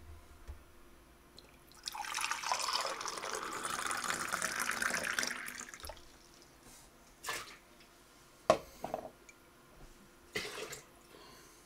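Cold water poured from a measuring jug into a ceramic mug: a splashing pour lasting about four seconds. A few short knocks follow.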